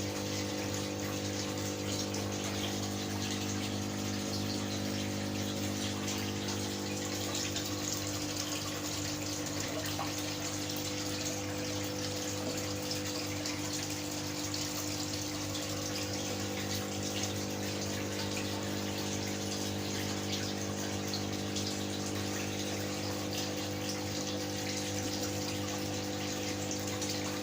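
Aquarium pump humming steadily under a continuous pouring and splashing of water from the aquascape's waterfalls.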